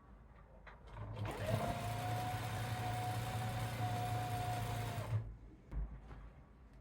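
Electric sewing machine running steadily for about four seconds, starting about a second in and stopping shortly after five seconds.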